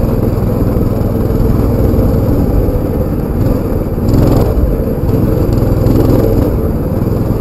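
Small motorbike engine running continuously as the bike rides over a rough dirt trail. There is a brief louder surge about four seconds in.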